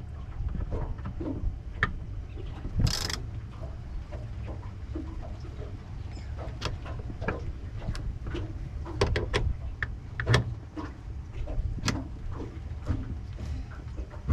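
Scattered clicks and knocks of a single-lever boat engine control being fitted to the cockpit wall and its lever worked back and forth, with a brief scraping hiss about three seconds in. A low rumble of wind on the microphone runs underneath.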